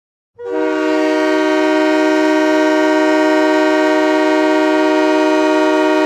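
Hockey arena goal horn sounding one long, steady multi-tone blast with added reverb, starting about half a second in.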